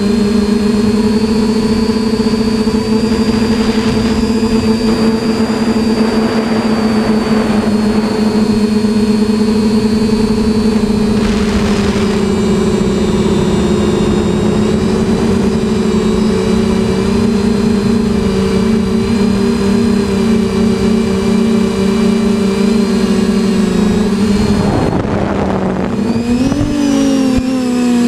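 TBS Discovery quadcopter's electric motors and propellers running steadily in flight, heard from its onboard camera. Near the end the pitch dips and then rises again as the throttle changes.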